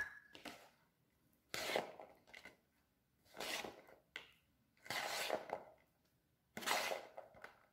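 Stone pestle grinding sweet corn kernels and spice paste in a stone mortar (cobek and ulekan): a series of short, rough scraping strokes with pauses between them.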